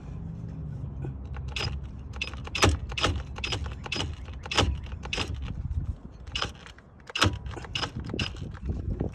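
Irregular metallic clinks and taps of hand tools and a 14 mm socket being handled and fitted at the brake caliper bolts, over a low steady hum.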